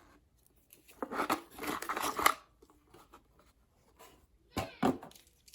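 Toy packaging and plastic parts being handled during an unboxing: a burst of rustling and scraping about a second in, then a few sharp clicks near the end.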